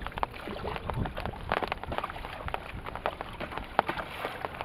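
Choppy flood water splashing and lapping against a small boat as it is rowed, in irregular little slaps and clicks, with some wind on the microphone.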